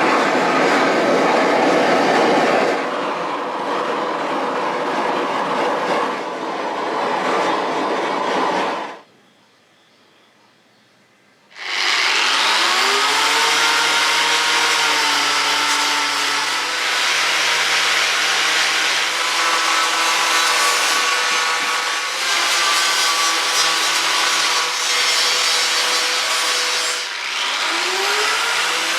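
Power tool fitted with an abrasive paint-removal fleece, scouring old paint and flaky rust off a steel motorcycle swinging arm with a harsh rubbing scratch. It stops for a couple of seconds about nine seconds in. The motor then spins up again with a rising whine and runs on steadily against the metal, and spins up once more near the end.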